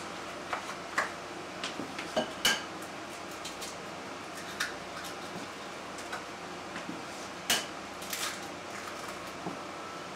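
Scattered light knocks and clinks against a mixing bowl as two eggs are cracked on the rim and dropped into creamed butter, sugar and sour cream. A few sharper raps stand out about a second in, midway through the third second, and past the seventh second.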